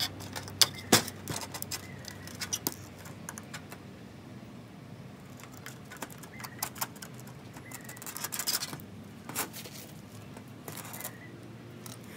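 Small tools and phone parts being handled during a phone repair: scattered sharp clicks and taps, loudest in the first second or so, with bouts of scraping a little after the middle and again near the end.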